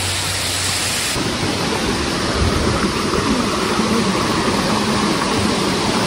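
Steady rush of a large waterfall's falling water, with an uneven low rumble underneath that grows after about a second.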